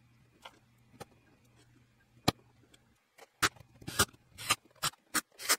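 Irregular small clicks and taps of hand tools and screws against a plastic 18650 cell spacer: a few faint ticks, one sharper click about two seconds in, then a quick run of clicks and knocks in the last two seconds as a cordless drill is set onto the screws.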